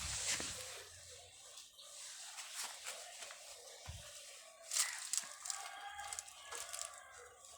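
A rooster crowing, among rustling and two sharp scraping knocks, one just after the start and a louder one near five seconds in, from netting being handled over a fish tank.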